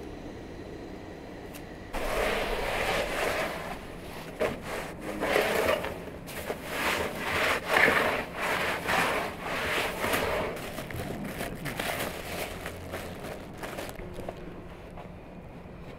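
Irregular scraping and rubbing strokes of a stick working the embers and ash on the brick floor of a wood-fired oven, starting about two seconds in and easing off near the end.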